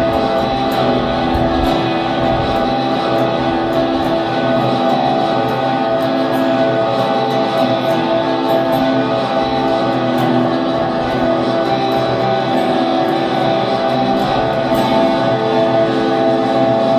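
Ambient music played on an acoustic-electric guitar: slowly picked notes over a steady wash of held, layered tones.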